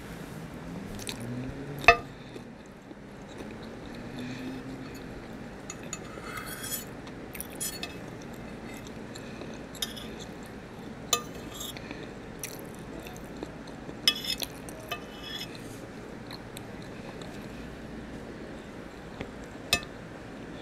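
Metal fork clinking and scraping against a plate several times, the loudest clink about two seconds in, with soft chewing between.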